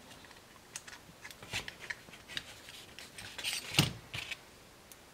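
Small metal parts and hand tools clicking and clinking as they are picked up and handled on a workbench, with one louder knock about four seconds in.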